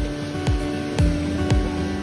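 Background music with a steady beat: a kick drum about twice a second under a held tone.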